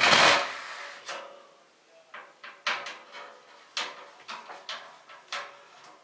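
An empty steel PC case is shifted round on a desk with a short scrape, then light clicks and knocks as a rear case fan and its screws are worked loose from the frame.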